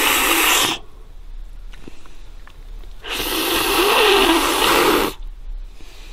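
Loud slurping as a man sucks fat out of a cooked catfish head with his lips. The first suck ends just under a second in, and a longer one of about two seconds starts three seconds in.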